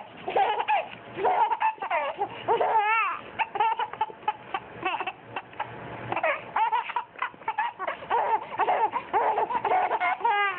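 A baby laughing hysterically in quick, high-pitched repeated bursts.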